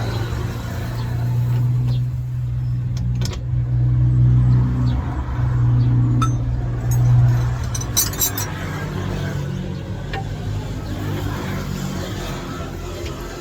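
A motor engine running with a steady low hum that swells twice and then eases off, with a few sharp clicks and a quick run of metallic clinking about eight seconds in.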